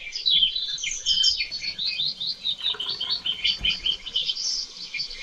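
A small bird chirping and warbling without a break, a fast run of quick high notes.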